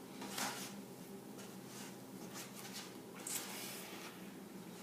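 Faint rubbing and scraping of hands working peanut butter cookie dough in a bowl, with a few soft strokes.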